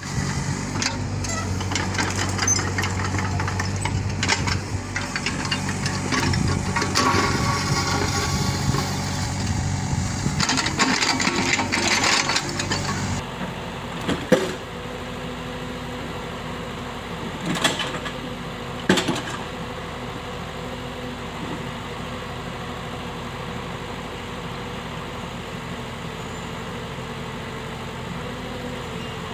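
Excavator engine running hard, with a steady low drone and clattering noise, then dropping abruptly about halfway to a quieter steady running broken by a few sharp knocks.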